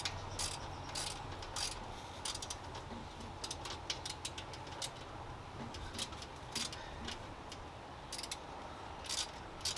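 Hand ratchet wrench clicking in short irregular runs as a bolt on a 1964 Chevrolet Impala's alternator mount is tightened down.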